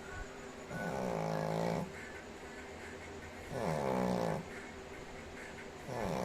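Shih Tzu snoring in a slow rhythm: three snores about two and a half seconds apart, each lasting about a second, the last beginning near the end.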